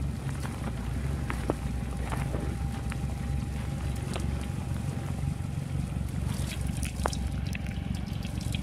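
Off-road 4x4's engine running at a steady idle while the vehicle sits stuck in deep mud, with a few faint clicks.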